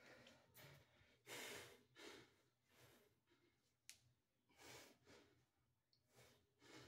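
Faint, heavy breathing of a man working through dumbbell curls: a string of forceful breaths, the strongest about a second and a half in. A short sharp click about four seconds in.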